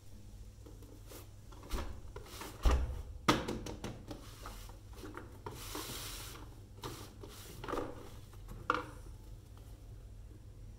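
A cardboard toy box being handled on an artificial-grass mat: a few knocks as it is set down and bumped in the first few seconds, then a longer rubbing as it is slid across the turf about halfway through, with smaller handling noises after.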